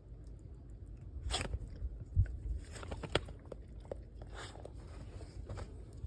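Snow crunching in irregular bursts, with a few low thumps.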